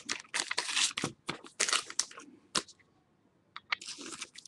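Crinkling and tearing of a trading-card pack wrapper as the cards are handled, in short bursts that stop for about a second near the end before starting again.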